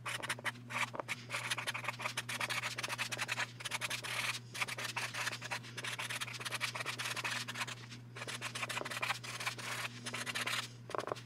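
Orange Sharpie marker writing on card stock: runs of quick scratching pen strokes with brief pauses between words.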